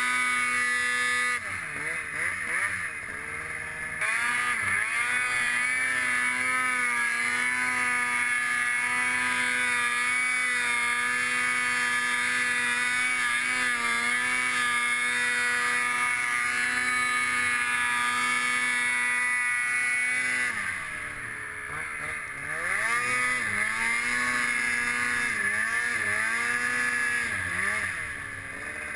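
Snowmobile engine running at high throttle through deep powder, a steady high engine note. The pitch and loudness drop as the rider lets off about 2 seconds in and again about 21 seconds and near the end, each time climbing back as the throttle opens.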